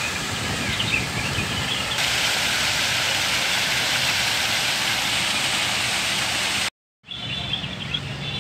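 A park fountain's water jet splashing into its pool: a steady rushing hiss of falling water that grows louder about two seconds in. It cuts off abruptly near the end, and faint bird chirps follow.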